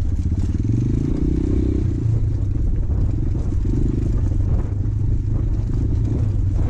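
Motorcycle engine running under way, its pitch rising briefly about a second in as it picks up revs, then holding steady.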